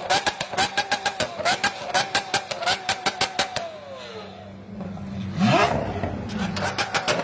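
Lamborghini supercar engine revved hard, its pitch held high and bouncing with a rapid crackle of exhaust pops. About four seconds in the revs fall away, then a quick rising blip of the throttle follows.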